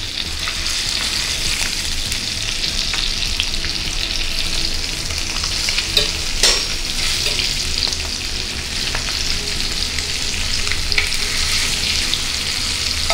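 Masala-coated fish steaks sizzling steadily as they shallow-fry in a little oil in a cast-iron skillet on medium flame. Scattered light clicks of steel tongs and a spatula against the pan as the pieces are turned, with a louder clatter about six seconds in.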